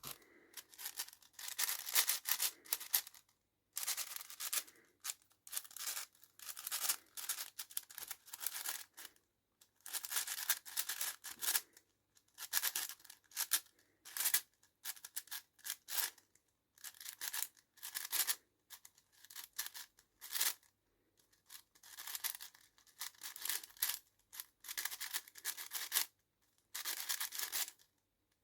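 Plastic 6x6 speedcube being turned quickly in flurries, its layers clicking and scraping, with short pauses between the bursts of turning.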